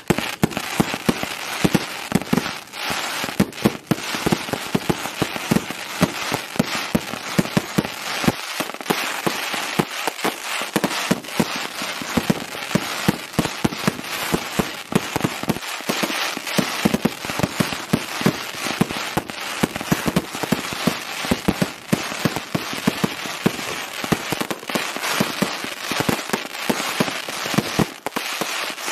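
120-shot compound fireworks cake firing shot after shot: a dense run of sharp launch and burst reports over continuous crackling from the crackle stars.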